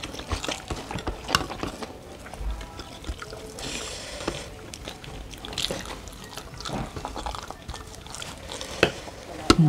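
Fish curry sauce being spooned onto rice: scattered clicks of a metal spoon against the bowl and plate, with a short wet pour about four seconds in.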